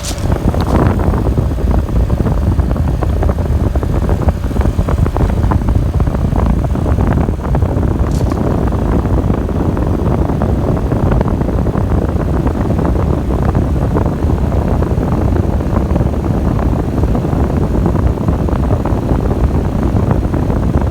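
2022 Trane XR14 3.5-ton heat pump running steadily in heat mode just after its first start-up of the season: a loud, even rush of fan air over the hum of the running unit.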